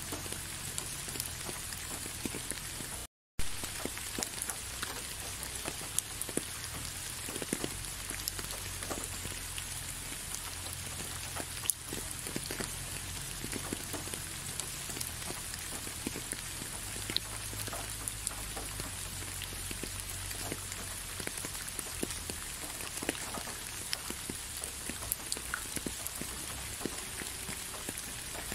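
Steady rain: an even hiss with many individual drops ticking. The sound cuts out briefly about three seconds in, then resumes.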